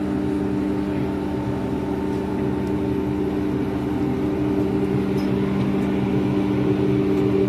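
Heavy machinery running with a steady, constant-pitch drone and low rumble, growing slightly louder near the end.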